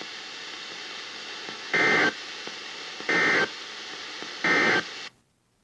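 Emergency Alert System end-of-message signal: three short, loud bursts of warbling SAME data tones, evenly spaced about a second and a half apart, over a steady radio hiss. The hiss cuts off abruptly just after the third burst.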